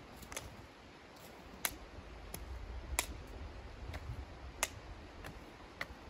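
Dry twigs snapped by hand: about seven sharp cracks at uneven intervals.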